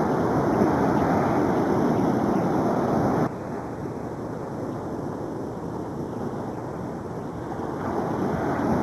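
Ocean surf breaking and washing in, with wind buffeting the microphone. The sound drops abruptly a little over three seconds in and swells again near the end.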